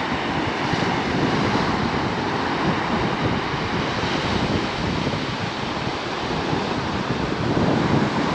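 Ocean surf washing onto the beach in a steady rush, with some wind on the microphone.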